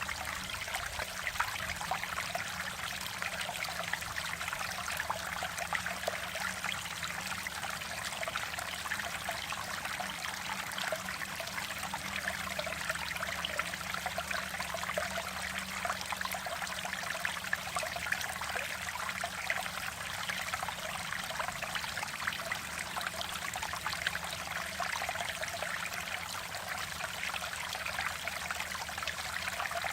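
Mountain valley stream flowing, a steady rushing and trickling of water with constant small splashes.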